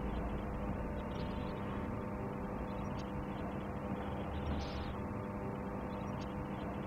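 A steady, dark ambient drone: a low hum with several held tones under a soft hiss, and a few faint clicks.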